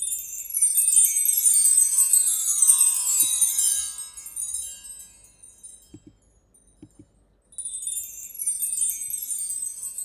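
Sampled chime tree from GarageBand's Orchestral Kit played twice: a shimmering run of small metal chimes sweeping downward and ringing out over a few seconds, the second run starting about seven and a half seconds in. A few faint clicks fall in the gap between the runs.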